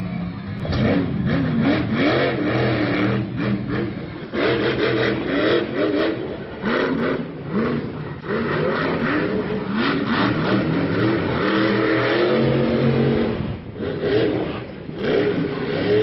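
Monster truck engine revving hard, its pitch climbing and falling again and again.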